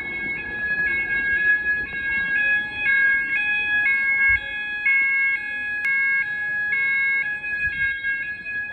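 Electronic fire alarm sounder, identified as an Apollo XP95 open-area sounder, in full alarm: a steady tone beneath higher tones that step back and forth between pitches about twice a second.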